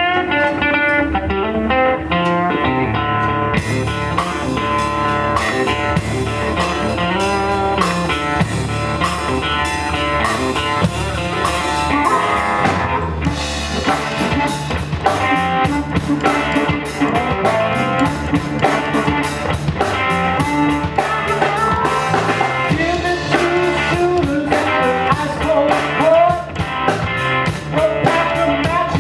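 Blues band playing an instrumental passage: electric guitar lines over bass, with the drum kit coming in about four seconds in and the band growing fuller around thirteen seconds.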